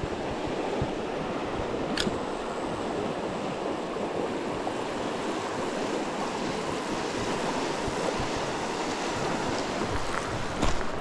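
Mountain stream water rushing steadily, an even hiss, with one faint tick about two seconds in.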